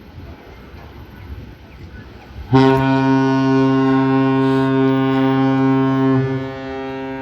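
Cruise ship horn sounding one long, steady, deep blast that starts suddenly about two and a half seconds in and holds for about four seconds. It then drops to a fainter tail that lingers to the end.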